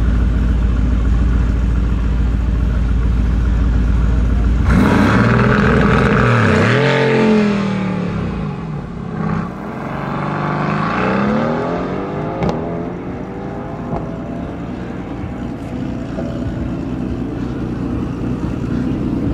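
Mercedes-AMG GT R's twin-turbo V8 running at the start line, then launching hard about five seconds in and revving up through the gears, with the pitch dropping at each upshift twice, before fading as the car pulls away down the strip.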